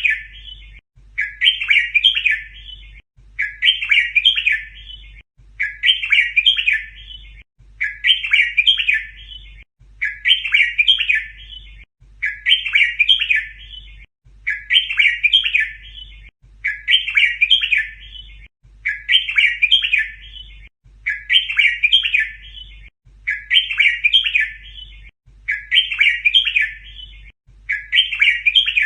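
Red-whiskered bulbul song: the same short, rich warbled phrase repeated over and over about every two seconds, a looped tutor recording in the doubled 'berl' style used to teach young bulbuls to sing.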